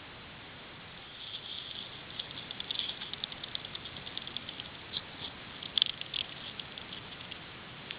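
Pet rat bruxing: rapid, irregular clicking of her incisors grinding together, starting about a second in and tailing off near the end. It is the sign of a relaxed, content rat.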